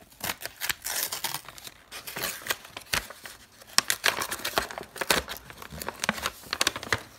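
Packaging rustling and crinkling in irregular crackles as a gift's contents are slid out of their wrapping by hand.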